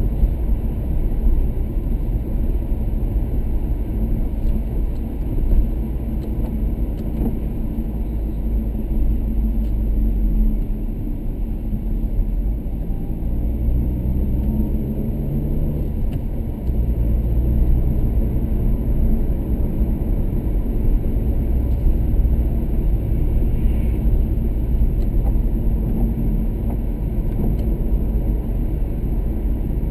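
Car engine and road noise heard from inside the cabin while driving, a steady low rumble. Around the middle the engine note glides and shifts as the car slows through a roundabout, then settles back to a steady run.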